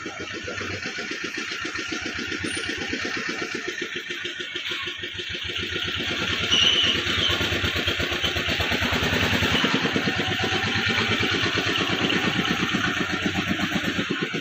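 A small engine running steadily with a fast, even beat, getting a little louder about six seconds in.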